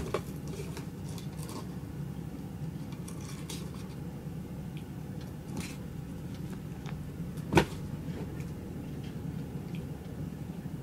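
A kitten wrestling and batting a small toy grasshopper about on a rug: a sharp knock right at the start and another about seven and a half seconds in, with light scuffs and ticks between, over a steady low hum.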